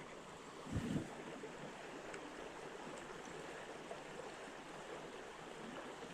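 River water flowing with a steady, even rush. A brief low thump or handling knock comes about a second in.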